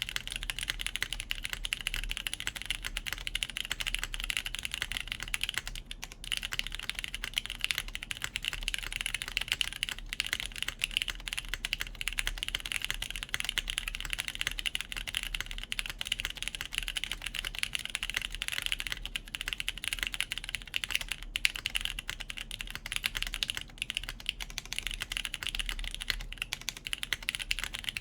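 Continuous typing on a JJW Cloudline V2 mechanical keyboard in its top-mount setup, with lubed Cherry MX Brown tactile switches on a full polypropylene plate under GMK keycaps: a steady stream of key presses, with a short pause about six seconds in.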